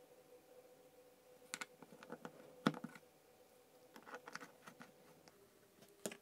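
Light clicks and knocks of a small plastic rocker switch being handled and set into the jaws of a small plastic bench vise, then clamped by hand. The clicks come in scattered clusters, the loudest a little under three seconds in.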